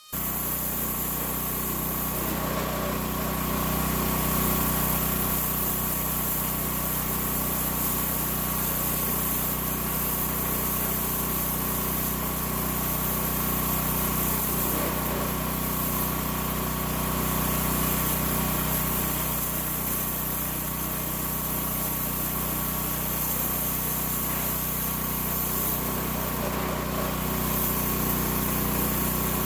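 Gasoline engine of a homemade sawmill running steadily, starting abruptly right at the start and holding an even pitch and level throughout.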